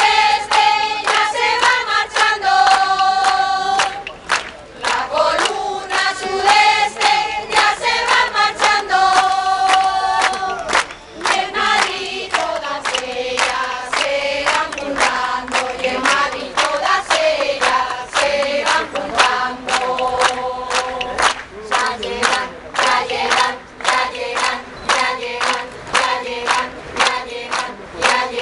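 Women's choir singing a song together while clapping along to the beat, with short breaks between sung phrases.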